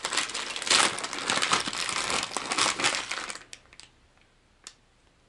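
Plastic package of soft plastic fishing baits crinkling as it is handled and opened, for about three and a half seconds, then a few faint clicks.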